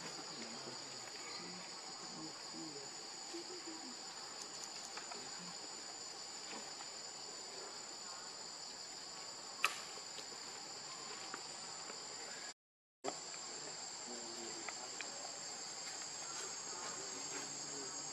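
Steady, high-pitched chorus of forest insects, holding two even pitches throughout. A single sharp click cuts through a little past halfway, and the sound drops out completely for a split second about two-thirds of the way through.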